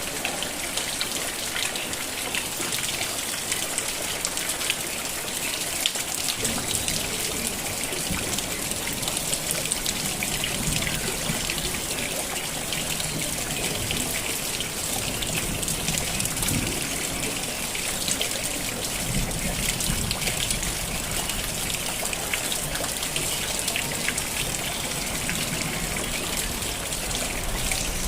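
Steady rain falling, with a dense patter of individual drops. A low rumble joins in about six seconds in.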